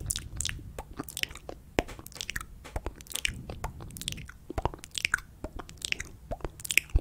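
Close-miked ASMR mouth sounds: quick, irregular wet clicks and smacks of tongue and lips, many in a row.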